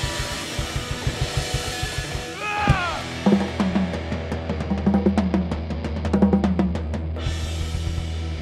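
Rock band playing heavy rock: a rapid, even bass-drum pattern, then a falling pitch glide, then a drum fill of snare and cymbal hits over a held low bass note. The drums stop about a second before the end, leaving a sustained low chord ringing.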